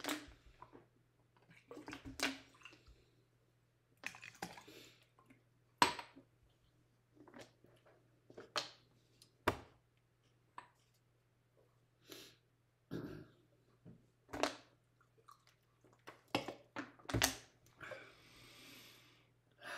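Scattered clinks and knocks of aluminium beer cans and small tasting glasses being handled and set down on a stone countertop, with beer poured from a can into a glass. A hiss lasting about a second and a half comes near the end.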